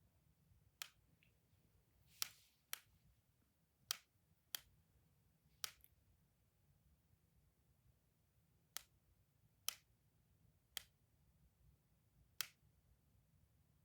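Sharp, crisp clicks from a handheld toy, about ten single clicks at irregular intervals, with a pause of a few seconds in the middle.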